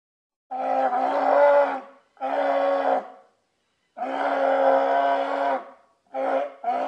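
California sea lion barking in a series of hoarse calls on one steady pitch: a long call, a shorter one, another long call, then two quick short barks near the end.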